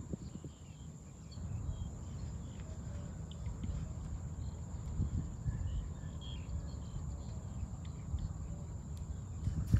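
Insects droning in one steady high note, with scattered short chirps, over an uneven low rumble; a louder low thump comes right at the end.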